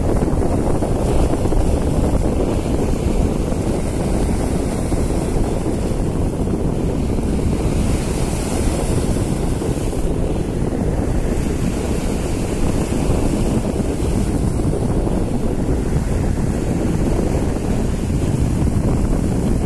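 Wind buffeting the microphone as a steady low rumble, mixed with choppy sea waves washing against shoreline rocks.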